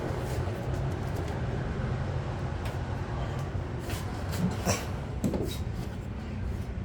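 Gas furnace running after a restart, a steady low rumble from the burner and blower fan, with a few faint clicks about two-thirds of the way through.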